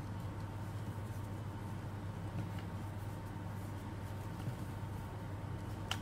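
Rubber spatula folding meringue into chocolate batter in a bowl, with faint scrapes and strokes over a steady low hum, and one sharp click near the end.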